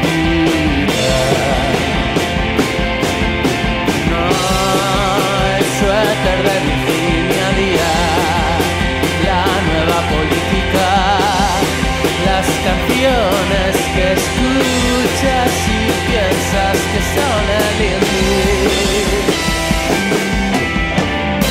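Rock music with a steady drum beat and wavering melodic lines over it.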